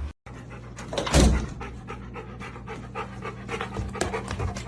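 A dog panting in short, repeated breaths, with a steady low hum behind it.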